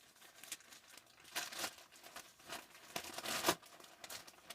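A plastic mailer bag crinkling and rustling in irregular handfuls as a jersey is opened and pulled out of it.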